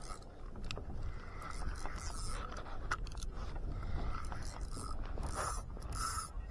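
Okuma spinning reel being cranked, its gears and rotor whirring in repeated swells as line is wound in.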